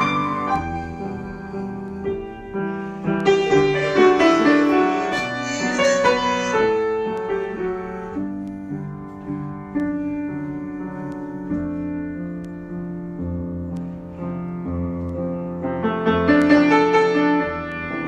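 Solo piano improvisation, with sustained chords and melody notes. The playing is fuller and louder in the first few seconds and again near the end, with a softer, sparser middle stretch.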